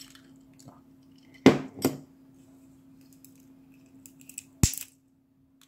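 Walnut shell cracking in a cast aluminium walnut cracker: two sharp cracks about a second and a half in. Near the end, a few small clicks and one sharp snap as the broken shell is pulled apart by hand.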